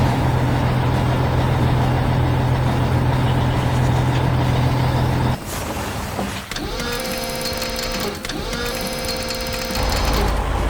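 Heavy machinery engine running with a steady low drone; about halfway through it cuts to a mechanical whine with several pitches that dip and rise in turn.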